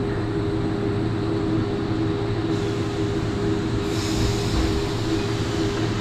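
DC electric commuter train heard from inside the carriage, standing with a steady electrical hum. A hiss comes in about two and a half seconds in and grows louder about four seconds in.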